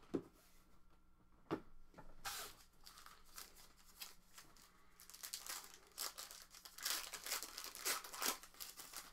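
Two sharp knocks, then several seconds of plastic tearing and crinkling as a sealed box of trading cards and its packs are torn open.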